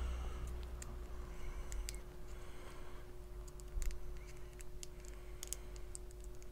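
Faint, scattered small clicks of fingernails picking at the backing of a pre-cut strip of Loctite Fuse Wrap silicone tape, over a faint steady hum.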